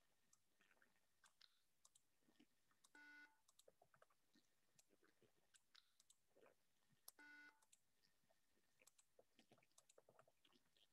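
Near silence with faint scattered mouse clicks, and two short, faint buzzy beeps around middle D, about 3 and 7 seconds in: the MakeCode micro:bit editor previewing a note as a tone block is set.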